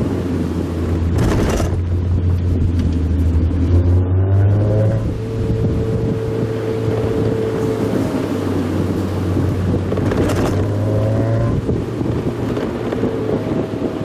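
Mazda Roadster's four-cylinder engine running steadily under way with the top down, wind and road noise over it. The engine note climbs twice, around four and ten seconds in, and two short rushes of noise come about one second in and ten seconds in.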